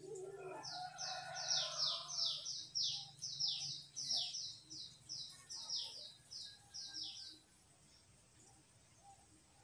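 A bird singing a long run of quick, high, downward-slurred notes, about three a second, which stops about seven and a half seconds in.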